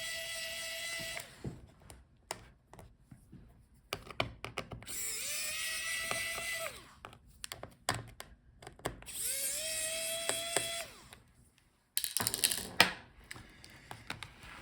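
Small electric screwdriver backing out a laptop's battery screws, running three times for a second or two each, its whine rising as the motor spins up and dropping as it stops. Light clicks and taps of screws and parts come between, with a louder clatter of clicks near the end.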